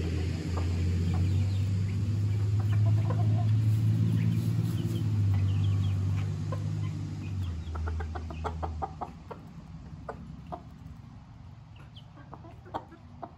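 Silkie chickens clucking, with short high chick peeps, over a loud low steady hum that stops about nine seconds in; a run of light taps follows.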